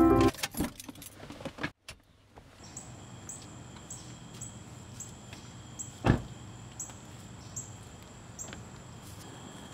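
A car door shut with a single solid thud about six seconds in, after a few clicks and knocks as the door is opened and the driver climbs out. Night insects trill and chirp steadily underneath, and music cuts off right at the start.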